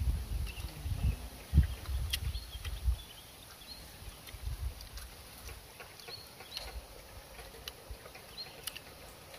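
Rural outdoor ambience: rumbling gusts of wind on the microphone through the first three seconds, then scattered faint clicks and short high chirps about once a second.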